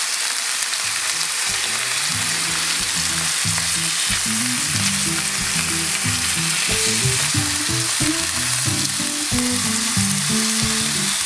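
Tahr steaks sizzling in lard in a skillet, turned and pushed about with a spatula. Low background music comes in underneath about a second and a half in.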